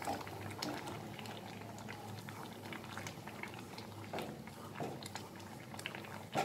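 Thick ground-tomato purée bubbling in a pan with many small irregular pops as it cooks down, while a wooden spatula stirs through it.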